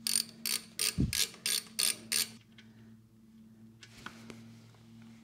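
Ratchet with a 12 mm socket clicking in about eight short, evenly spaced bursts over the first two seconds as it works the oil drain bolt loose, with a low thump about a second in. After that only a faint click as the bolt is turned out by hand.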